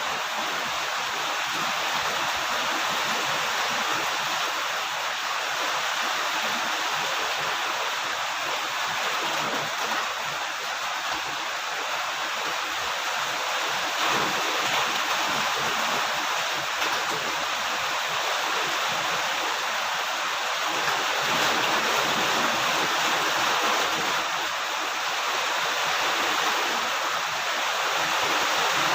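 Steady heavy rain, an even hiss of falling water.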